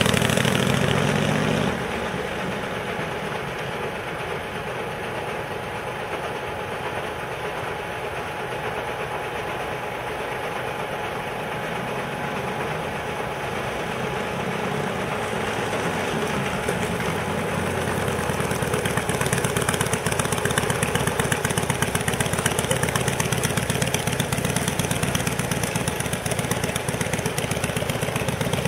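Harley-Davidson Evolution 1340 air-cooled V-twin motorcycle engine, rising in pitch as it accelerates away at first. It then runs fainter in the distance and grows steadily louder as the bike rides back and pulls up close.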